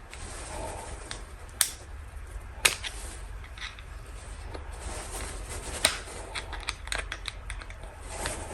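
Small metal parts of a snow blower carburetor being handled and taken apart by hand: scattered light clicks and taps, with three sharper clicks.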